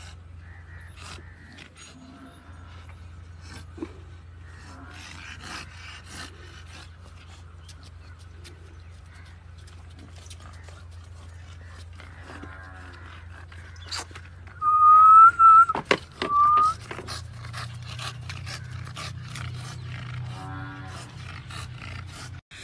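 Animal calls: a loud, high, held call about two-thirds of the way in, then a shorter one, with fainter calls before and after, over a steady low hum and scattered clicks.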